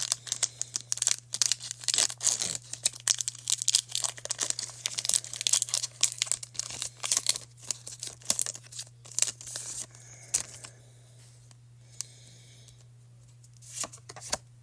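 Foil Pokémon booster pack wrapper being torn open and crinkled: a dense crackling for about ten seconds, then much quieter with a few light clicks near the end.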